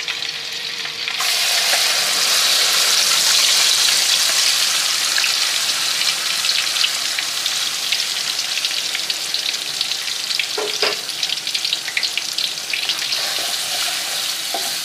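Blended onions frying in hot oil in a pan. The sizzle jumps up suddenly about a second in as they go into the oil, then carries on steadily. Short scrapes and clicks of stirring, and one knock about two-thirds through, sound over it.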